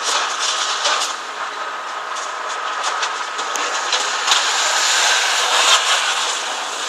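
Road traffic hiss, tyres on a wet road, swelling and fading as vehicles pass, with a faint steady whine and a few light clicks.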